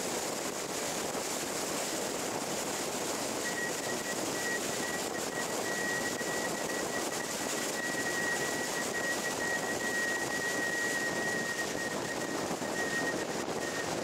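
Steady road and wind noise from a car driving along a road, with a thin steady high tone that comes in about three seconds in and holds.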